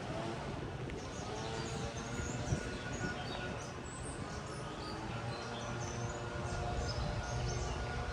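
Several small birds chirping and calling in short, scattered notes over a steady low outdoor background noise.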